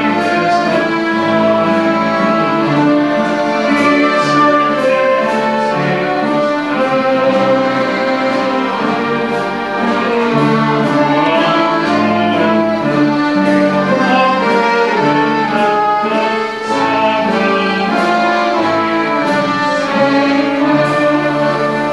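Small folk ensemble of violins and accordions playing a slow piece together: sustained melody over a bass line that changes note every second or so.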